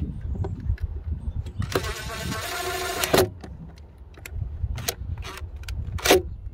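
DeWalt cordless driver running for about a second and a half as it drives a terminal screw down on a boat's fuse block, then a few short blips of the motor near the end.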